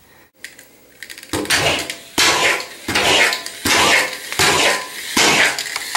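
Hydro Wheels Lightning McQueen toy car's push-back motor being wound by pushing the car backwards over and over, a short burst of noise with each stroke, about seven strokes in a steady rhythm starting a little over a second in.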